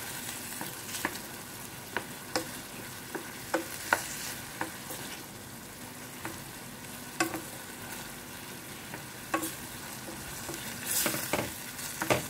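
Tomatoes, onion and garlic sizzling as they sauté in olive oil in a stainless steel pan. A wooden spoon stirs them, clicking and scraping against the pan every second or two, with a louder burst of sizzle about eleven seconds in.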